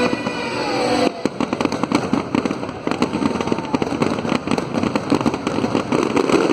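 Fireworks show: a music track with held tones ends about a second in. Then comes a dense, rapid barrage of crackling and popping fireworks bursts.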